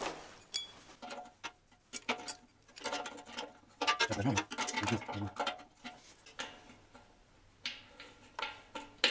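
Small, irregular metal clicks and taps from hands fitting the parts of a motorcycle fuel tap back together.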